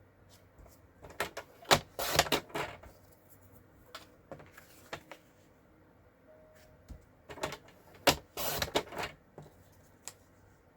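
Paper trimmer cutting cardstock strips: two rounds of clicks and short rasping slides of the blade, about a second in and again near eight seconds.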